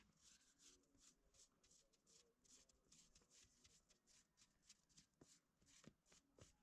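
Near silence with faint, rapid rustling or clicking, several times a second.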